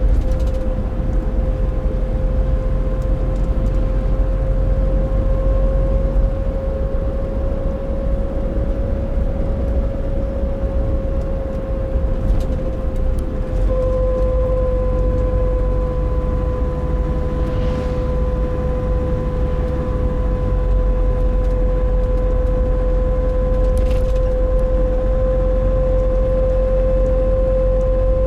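Nissan NV350 Caravan with the YD25DDTi four-cylinder turbodiesel driving at steady light throttle: engine and road rumble under a clear, steady droning 'ko~n' tone with a fainter tone above it. It is the abnormal noise that appears when the accelerator is held steady at about 1000 to 1500 rpm, which the owner suspects may come from the differential.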